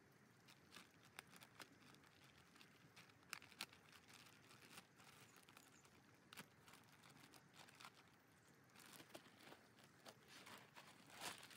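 Faint crinkling and rustling of a plastic compost bag being cut open and handled, with scattered soft clicks and crackles.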